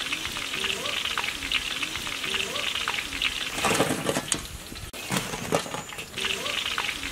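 Chicken pieces deep-frying in hot oil in a large iron kadai: a dense, steady crackling sizzle. It surges louder twice around the middle.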